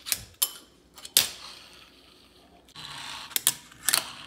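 Fingerboard clacking on a granite countertop: sharp pops and landings of the small board, the loudest about a second in, then a short rolling scrape of its wheels and a few more quick clacks near the end.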